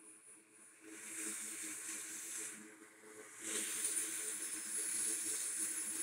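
Hot air rework station blowing a steady hiss of air over the logic board. The hiss dips away for about a second partway through and comes back louder, over a faint low hum.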